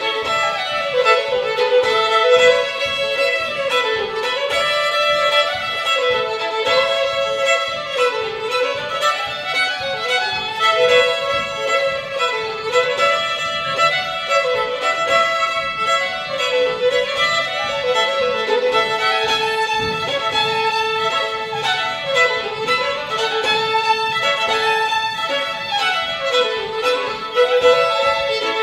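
Two fiddles playing a fast French Canadian reel together, with quick running notes in a steady driving rhythm.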